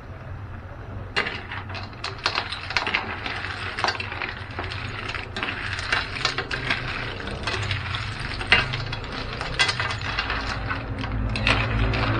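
Shell-on freshwater snails clattering against each other and an aluminium wok as they are stirred with a metal ladle: an irregular run of sharp clicks and knocks over a faint sizzle.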